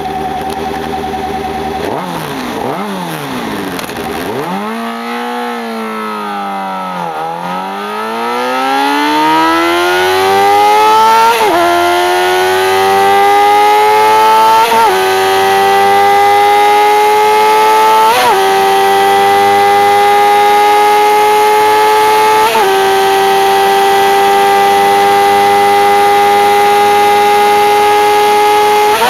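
Suzuki GSX-R sport bike's inline-four engine running under way. The pitch falls to a low point about seven seconds in, then climbs steadily as the bike accelerates, with about four brief dips along the way, and settles into a nearly steady cruise.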